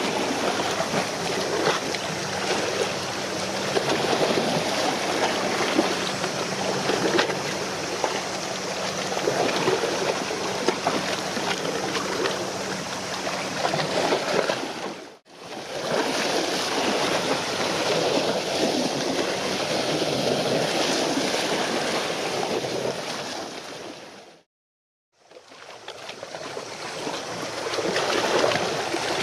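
Steady rushing noise of wind and water, with a faint low steady hum through the first half. The sound cuts out abruptly twice, the second time for about half a second.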